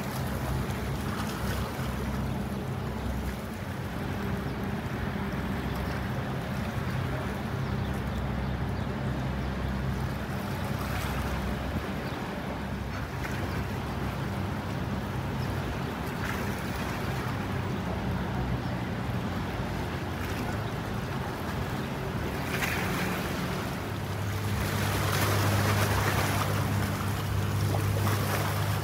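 Steady low drone of a boat's engine over a haze of wind and water noise, the drone growing stronger in the last few seconds.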